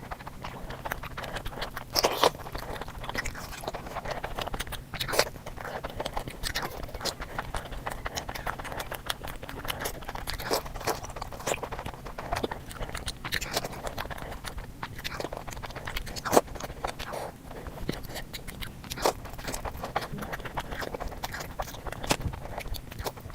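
Someone eating a sweet: steady chewing with frequent crisp crunches and bites, the sharpest about 2, 5 and 16 seconds in.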